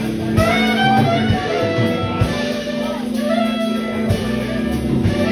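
Live jazz band playing: a saxophone melody over electric guitar, keyboard, bass and drums.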